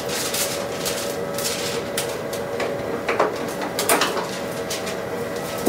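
Plastic clicks and knocks as the transfer film cartridge is lifted out of a Zebra ZXP Series 8 card printer, with a few sharper knocks, over the printer's steady hum.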